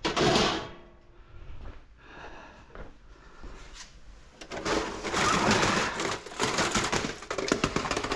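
Scrap desktop computer towers being handled and stacked: a loud clunk at the start, then a busy stretch of clattering and scraping of metal cases in the second half.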